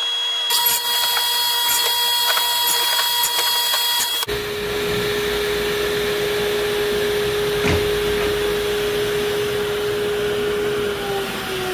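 Sears Craftsman radial arm saw running while boards are cut to length. The sound changes abruptly about four seconds in, and near the end the motor's hum drops in pitch as the blade spins down after switch-off.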